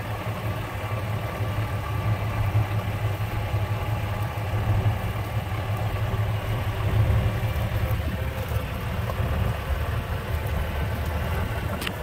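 Car driving slowly, a steady low engine and road rumble, with a single click near the end.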